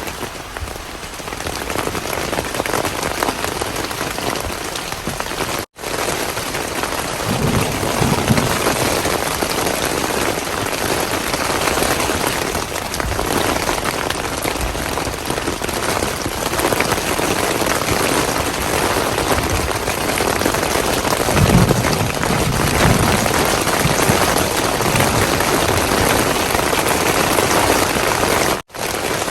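Heavy rain falling steadily, with low rumbles about eight seconds in and again about twenty-two seconds in. The sound cuts out for an instant twice.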